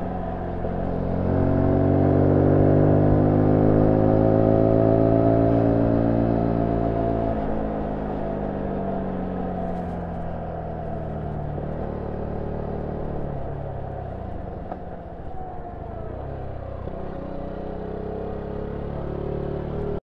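Zontes U1 125 engine through its stock exhaust, heard from on board while riding. It pulls up in pitch about a second in and holds, then drops off sharply around seven seconds in. After that it runs lower and unevenly, easing off further before steadying.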